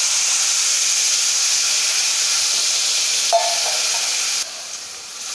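Loud steaming hiss and sizzle as wet ground coconut paste hits hot coconut oil and fried shallots in a kadai, the water in the paste flashing to steam. A short clink comes a little over three seconds in, and the hiss drops off suddenly about a second later.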